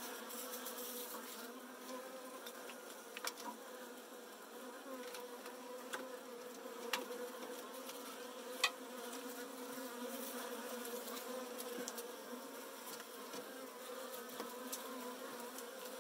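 A package of Saskatraz honey bees buzzing steadily, with a few sharp clicks scattered through it.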